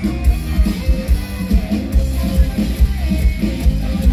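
Loud live mor lam band music played over a PA system, with a heavy, steady bass beat under keyboard and guitar lines.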